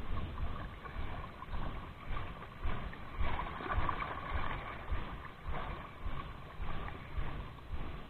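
Small sea waves lapping and sloshing against shore rocks, in repeated uneven surges.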